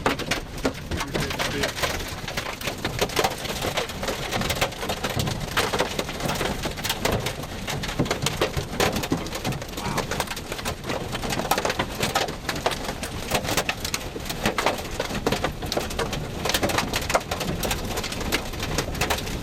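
Rain and hail pelting a storm-chase vehicle in a dense, steady patter of small hits, over a low rumble of wind.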